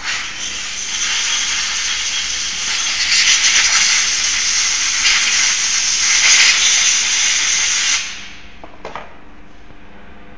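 Loud steady hiss of pressurised air for about eight seconds, starting abruptly and dying away quickly, followed by a couple of light clicks.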